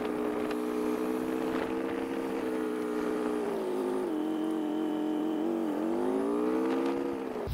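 Harley-Davidson Road Glide Special's V-twin engine running while riding, its note easing down around the middle and then rising again as it speeds up near the end.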